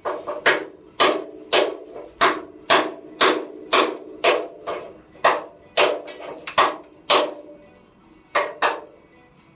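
Steady hammer blows on a rivet in a steel vehicle chassis frame, about two a second, each with a short metallic ring, working the rivet out. The blows stop for about a second, then two quick ones come near the end.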